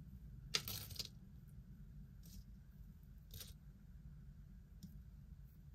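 Quiet handling noises from small pieces of jewelry being picked up and sorted: a short rustle just under a second in, then a couple of fainter scrapes and a small click, over a low steady hum.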